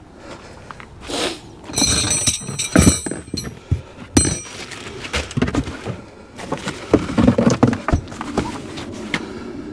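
Handling noise from pitching a tarp on adjustable poles: a run of knocks and clicks with some clinking about two to three seconds in, over rustling.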